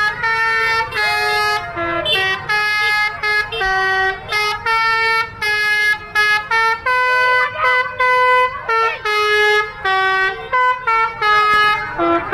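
Bus's roof-mounted 'telolet basuri' multi-tone horn playing a sholawat melody, one steady horn note after another, each lasting under a second with short breaks between.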